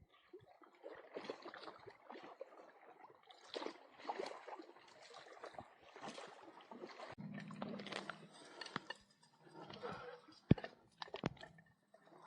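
Faint, irregular splashing and crunching of shallow water at the shoreline, with a low hum for a few seconds in the middle and several sharp clicks near the end.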